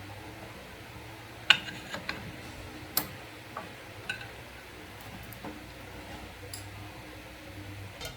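Scattered light metallic clinks and taps, about ten at irregular intervals, some with a brief ring, the sharpest about one and a half and three seconds in, over a faint low hum.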